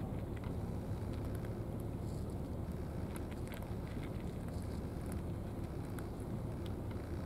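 Cats chewing dry cat food from a plastic tray, scattered small crunching clicks, over a steady low rumble.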